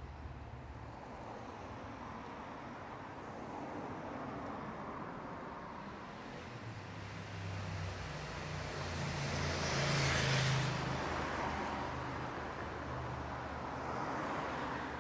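A motor vehicle driving past in the street, its engine and tyre noise growing, loudest about ten seconds in, then fading, over steady street ambience.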